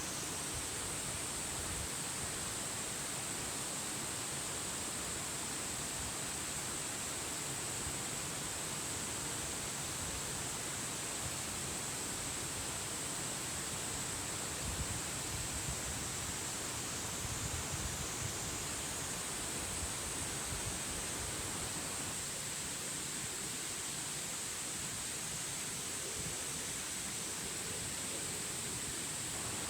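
Steady, even hiss of outdoor background noise with a continuous high-pitched drone running through it, and no distinct events.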